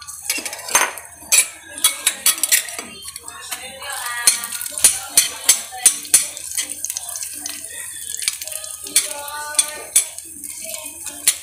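Metal ladle clinking and scraping against a stainless steel pan as garlic cloves are stirred in a little hot oil, many sharp clinks in quick runs. A faint hiss of the garlic starting to fry runs underneath.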